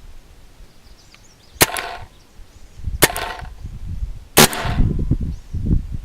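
CO2-powered JT paintball gun firing three shots, each a sharp crack, about a second and a half apart. The practice paintballs are breaking in the barrel.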